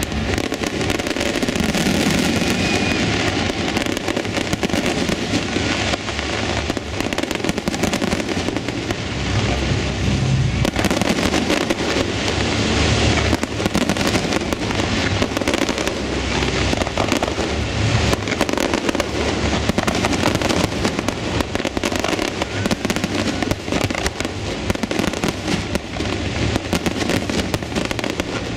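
Fireworks display: aerial shells bursting in a rapid, continuous barrage of bangs and pops with no pause.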